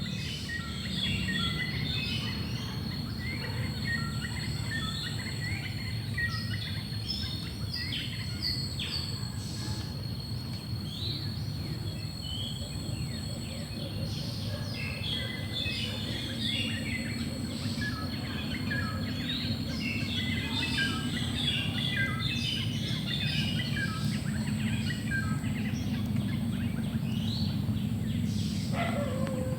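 Many forest birds chirping and calling over one another, over steady high insect drones and a steady low rumble. Near the end one call glides downward.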